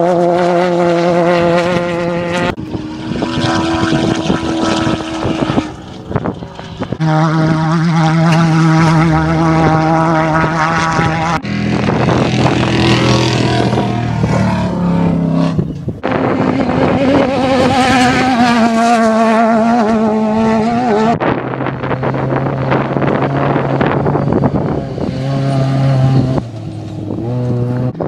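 Off-road race vehicle engines running hard, heard in a string of short clips that change abruptly every four to five seconds. Each clip holds a fairly steady engine note with a rough, noisy edge.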